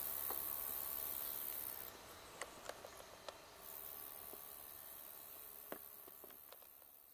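Forest ambience: a steady high-pitched hiss like insects, with a few faint clicks around the middle when the hiss briefly drops away, fading out near the end.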